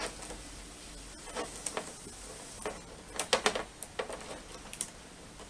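Irregular light clicks and taps of a hand tool working at the plastic back of a flat-screen TV, with a quick cluster of clicks a little past the middle.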